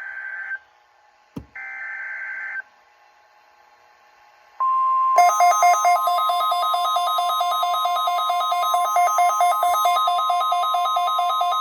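NOAA Weather Radio Required Weekly Test: two short, screechy SAME header data bursts, one at the start and one about 1.5 s in. About 4.5 s in the steady 1050 Hz warning alarm tone comes on, and half a second later a rapidly alternating two-pitch alarm warble joins it, both loud.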